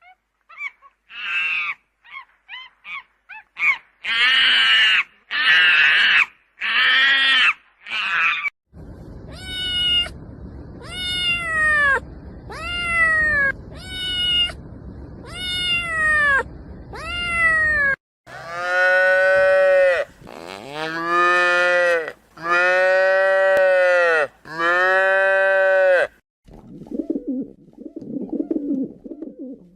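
A run of different animal calls played one after another: about a dozen short rough calls at first, then about eight pitched calls about a second apart that each rise and fall, then four long drawn-out calls, and near the end a low murmuring sound begins.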